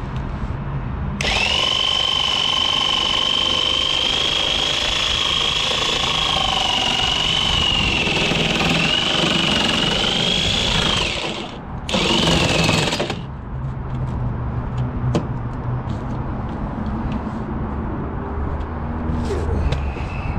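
Handheld power tool cutting the plastic bumper cover, running in one long burst of about ten seconds with its high motor whine wavering as the load changes, then a second short burst of about a second.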